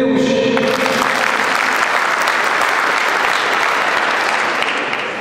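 Audience applauding: many hands clapping together, building up about a second in and dying away near the end.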